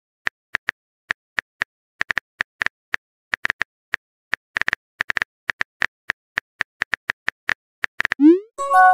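Phone on-screen keyboard key-tap sounds: a run of short, irregular ticks as a text message is typed letter by letter. Near the end a quick rising swoop and a bright chime sound as the message is sent.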